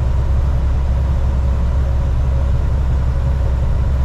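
Steady low rumble of a semi-truck's engine and road noise heard inside the cab while driving, with a faint steady hum above it.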